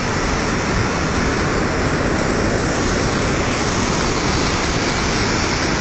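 Muddy flash-flood water rushing in a torrent: a loud, steady, unbroken rush of water noise.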